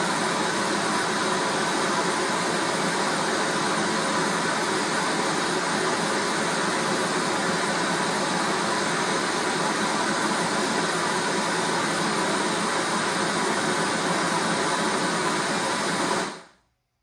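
Pink noise test signal played through a motorcycle audio system's speakers on channels 1 and 2 of a Cicada Audio 700.4PRO DSP amplifier, a steady, even hiss with no deep bass, used to tune the system on a real-time analyzer. It cuts off suddenly near the end.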